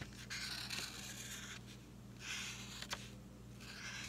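Black Sharpie marker drawing circles on paper: a faint scratchy rub in three strokes of about half a second to a second each, with a small tap about three seconds in.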